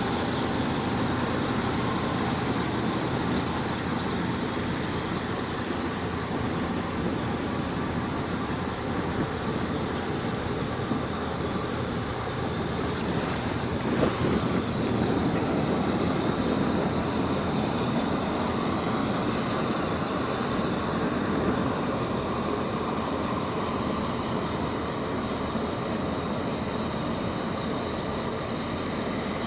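Steady rumble of ship and tugboat engines across the harbour water, mixed with wind noise on the microphone, with one brief knock about halfway through.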